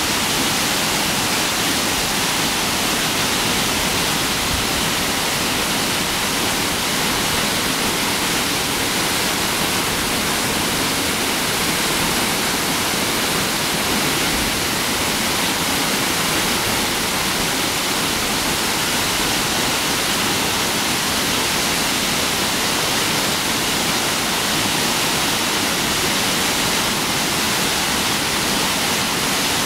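Mountain stream rushing steadily over rocks, running full after heavy rain.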